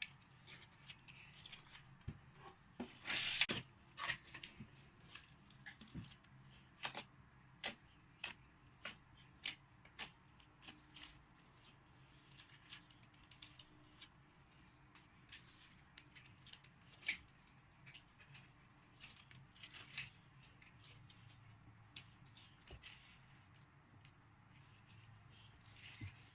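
Hands working slime: irregular sticky clicks and pops as it is pressed and pulled, with a longer louder crackle about three seconds in.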